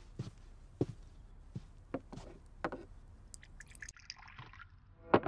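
Tea being poured into small ceramic teacups, with a series of light clinks as the teaware is handled. The pour hisses for about two seconds in the second half, and a louder clink comes near the end.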